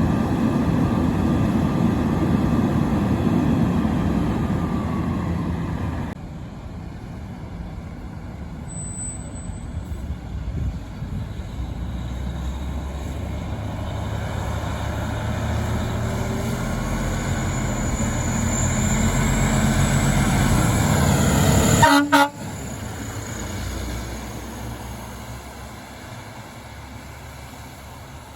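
Fire truck air horns sounding with a steady chord for about six seconds. Then a heavy fire truck's engine grows steadily louder and is cut off abruptly about two-thirds of the way through, leaving a quieter traffic rumble.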